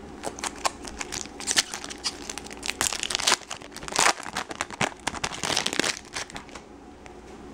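Foil wrapper of a 2012 Bowman Draft Picks and Prospects card pack crinkling and tearing as it is ripped open and the cards pulled out. A run of sharp crackles, loudest in a few bursts, stops about six seconds in.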